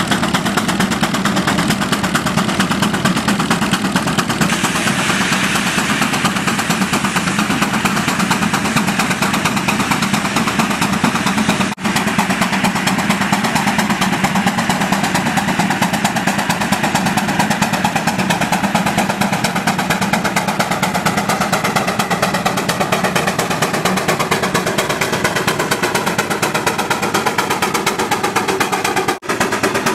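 Steam traction engine working under load pulling a plow, its exhaust chuffing fast and evenly up the stack. The sound drops out briefly twice, about twelve seconds in and near the end.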